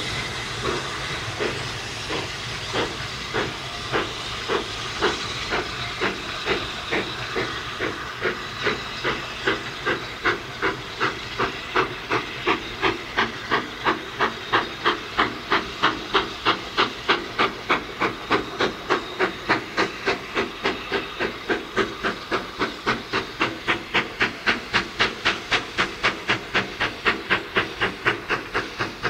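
A GWR Modified Hall two-cylinder 4-6-0 steam locomotive pulling away under load. A hiss of steam comes first, then sharp chimney exhaust beats that quicken from about one a second to three or four a second as it gathers speed.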